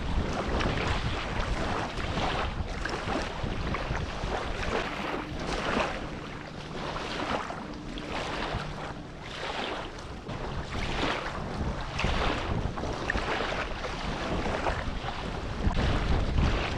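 Wind buffeting the microphone over water sloshing and splashing in repeated surges, about one a second, as someone wades through shallow water. A faint low hum runs under it through the middle.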